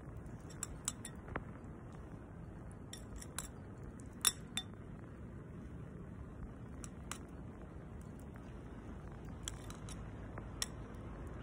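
A metal spoon clinking against a glass while scooping snow into it: about a dozen light, scattered clinks, the loudest about four seconds in, over a steady low background hum.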